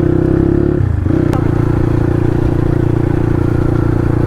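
Motorcycle engine idling just after starting. Its note dips briefly about a second in, then holds steady.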